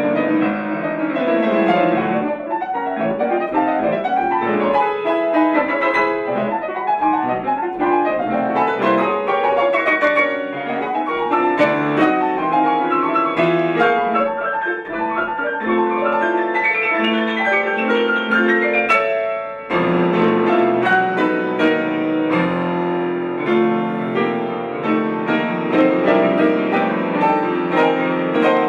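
Solo grand piano playing classical music: fast, dense passage-work with runs across the keyboard. About two-thirds of the way through it breaks off briefly, then a new section begins with fuller sustained chords under quick figures.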